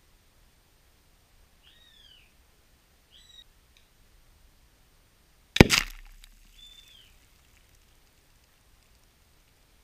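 A homemade exploding target in a 1-litre plastic bottle bursts with one loud, sharp bang about five and a half seconds in, set off by a BB hit, and dies away over about a second.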